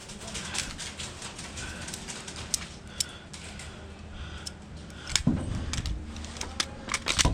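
Scattered sharp clicks and snaps of airsoft gunfire across the field, irregular and mostly distant. Short soft bird calls repeat through the middle, and a couple of louder low thuds come about five seconds in and near the end.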